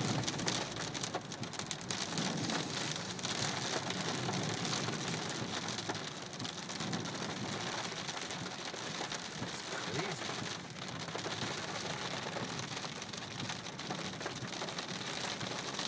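Steady rush of flash-flood water, heavy rain and runoff pouring fast across the road, an even hiss with no pauses.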